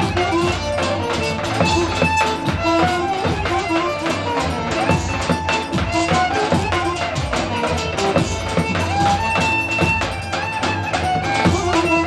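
Lively Roman havası dance music: a melody line over fast, steady drumming.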